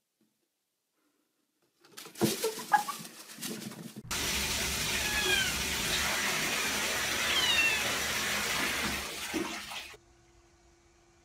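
A few knocks and thumps, then a toilet flushing: a steady rush of water that starts and cuts off suddenly, with a few short high squeaks over it.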